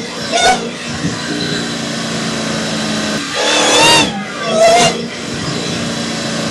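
Supercharged Dodge engine idling with short throttle blips, the pitch rising and falling with each one. A longer, louder rev comes about three and a half seconds in, followed by one more short blip.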